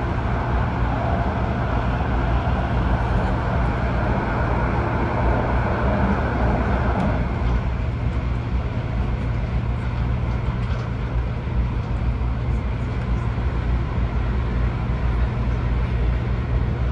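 Steady running noise heard inside the cabin of an MTR Airport Express Adtranz-CAF A-Train travelling at speed: a constant low rumble under a rushing noise. The higher rushing part of the noise eases about seven seconds in.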